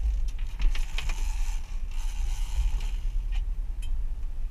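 A quick run of clicks and knocks from a spinning rod and reel being handled and set in a rod holder, then a couple of single clicks near the end, over the steady low rumble of the boat underway.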